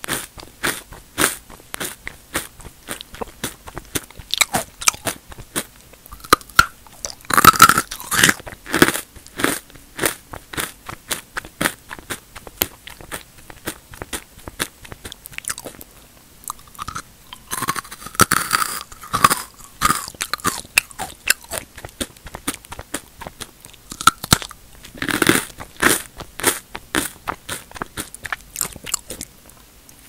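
Square potato and sweet potato chips crunched and chewed right against a close microphone: a continuous run of crisp crunches, with three louder spells of crunching.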